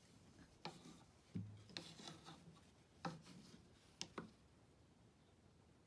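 Faint rubbing and light taps of a stick shuttle passing through the warp of a wooden rigid heddle loom, with yarn drawn across the threads, about six short soft sounds in all.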